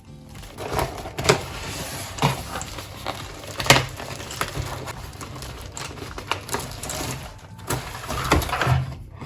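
Mechanical keyboard with clicky Outemu blue switches, keys pressed unevenly, making sharp clicks and knocks a few a second.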